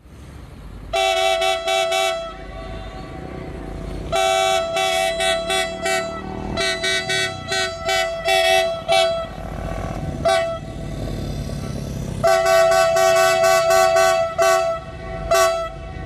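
Diesel freight locomotive's air horn sounding a chord, in a string of short toots and longer, broken blasts, over a steady low rumble of the train.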